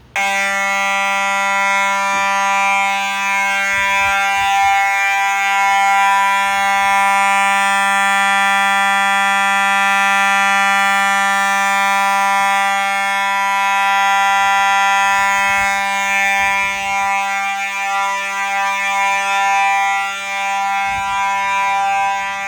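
Fire alarm horn sounding a loud, continuous steady tone that starts abruptly and holds without pulsing or changing pitch.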